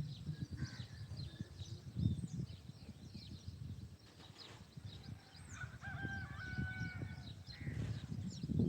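Outdoor birdsong: many small birds chirping and whistling over a low, uneven knocking rumble. One longer held call with a step in its pitch sounds from about six seconds in.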